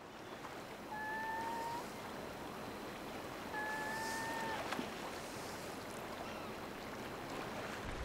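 Steady rushing outdoor ambience, with two long, even whistled notes: one about a second in, the other a couple of seconds later, each held about a second.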